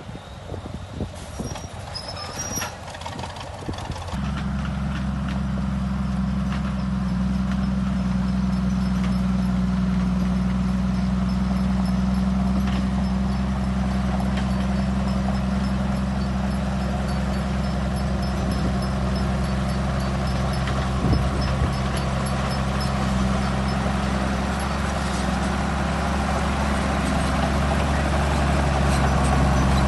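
The diesel engine of a heavy construction machine runs steadily. It comes in abruptly about four seconds in, after a few knocks and clicks, and grows a little louder near the end.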